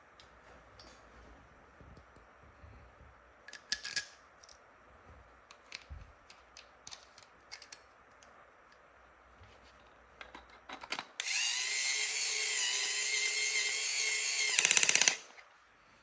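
Plastic clicks and rattles of toy pieces being handled, then a toy electric drill runs for about four seconds with a steady whirring buzz that stutters briefly just before it stops.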